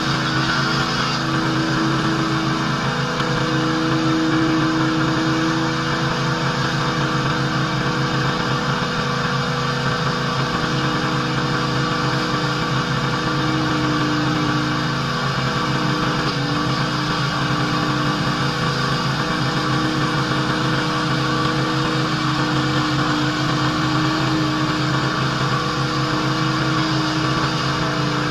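Pressure washer running steadily: an engine drone with a slightly wavering tone under the continuous hiss of the high-pressure water jet spraying the driveway.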